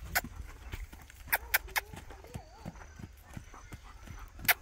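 Hooves of Mangalarga Marchador mares clopping as they walk off, in irregular strikes, with a loud pair near the end.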